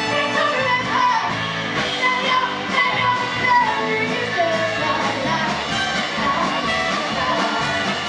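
Live soul-rock band playing: a woman sings lead over electric guitar, bass guitar, drums and a horn.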